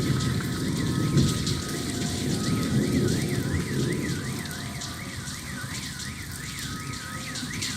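A low rumbling noise that slowly fades, with a fainter warbling tone, like an alarm or siren, rising and falling about three times a second over it.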